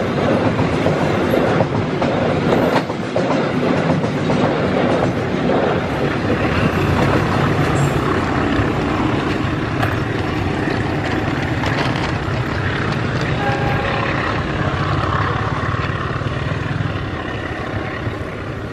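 Freight train wagons rolling past at close range, the wheels clattering over the rails in a steady din.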